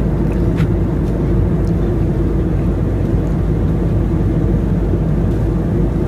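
Steady low drone of an Airbus A320-family jet's cabin at cruise: engine and airflow noise. A couple of faint clicks sound about half a second and a second in.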